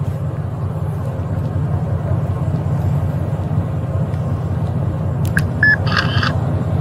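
Steady low rumble of an idling vehicle, with a couple of short electronic beeps and a brief brighter chirp about five to six seconds in.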